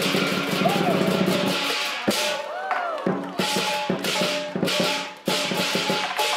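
Lion dance percussion of drum, gong and cymbals: a fast drum roll for about two seconds, then a steady beat of separate strikes whose ringing tones bend in pitch.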